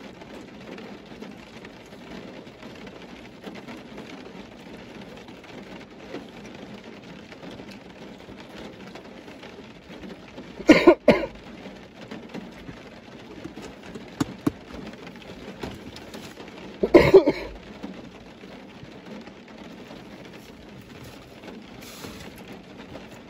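Close chewing and mouth noises of a man eating chicken wings, broken by two short, loud coughs, one about eleven seconds in and another about six seconds later.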